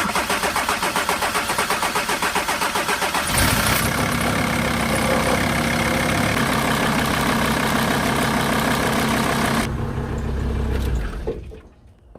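VW T4 2.5 TDI five-cylinder diesel cranking on the starter for about three seconds, then catching and running steadily before being shut off near the end. The engine has a fuel-supply fault that makes it die, with air bubbles showing in the fuel, which the owner suspects is air being drawn in.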